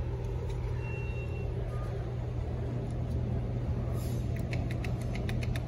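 A steady low machine hum, like an engine or motor running nearby, with a quick run of light clicks near the end.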